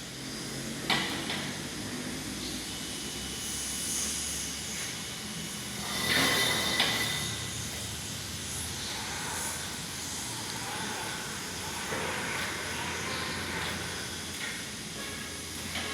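Electric hoist crane running under a test load: a steady motor hum, broken by a few short clunks and clicks about a second in, around six to seven seconds, and near the end.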